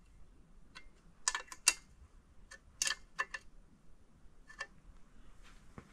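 Light metallic clicks and ticks, about eight, spaced unevenly, from hands working the oil pump's drive chain and sprocket.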